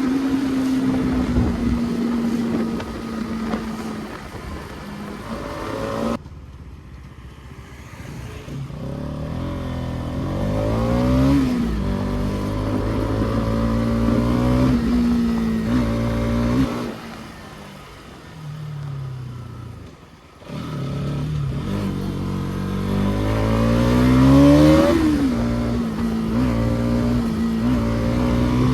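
Bajaj Pulsar NS200's single-cylinder engine pulling through the gears on the move: its pitch climbs and then drops sharply at each upshift, three times. Twice it eases off to a quieter, lower note, over a steady rush of wind and road noise.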